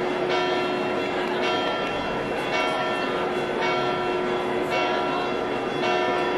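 Church bells ringing in a festive peal, a fresh stroke about every second with the tones ringing on between them, for the festival exit of San Corrado's relics.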